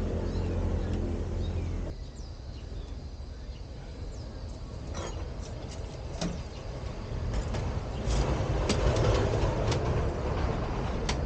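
Scattered clicks and knocks of bicycle parts being handled while a dropper seatpost and saddle are fitted, over a steady low hum that stops about two seconds in.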